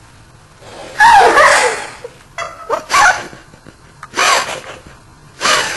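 High-pitched laughter in loud bursts, sped up into a chipmunk-like voice: one long burst about a second in, then several shorter ones.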